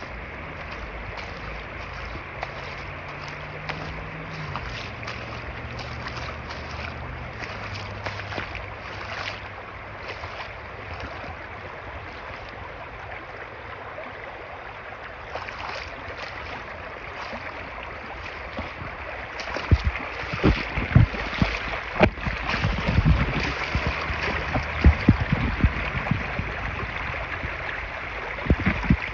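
Shallow spring-fed stream running over rocks and gravel: a steady rush of water. About two-thirds of the way in it gets louder, with irregular low thumps and buffeting close to the microphone, as the water spills through a small cascade between boulders.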